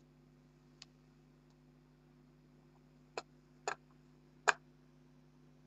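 Computer mouse clicking: a faint click about a second in, then three sharper clicks over the next two seconds, the middle one doubled and the last the loudest, over a low steady hum.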